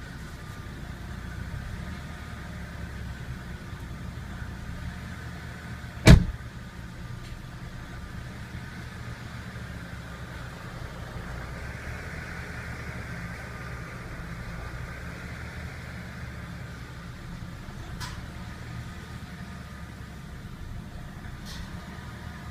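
BMW engine idling with a steady low rumble, the rough idle that the uploader puts down to a variable valve timing fault. A single sharp knock about six seconds in, and a fainter click later.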